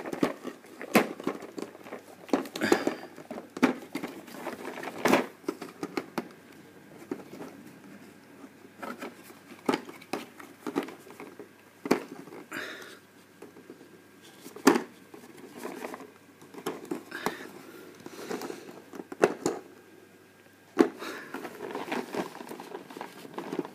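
Fingers picking and tearing at a My Little Pony advent calendar's perforated cardboard door: irregular scrapes, small tears and knocks against the card.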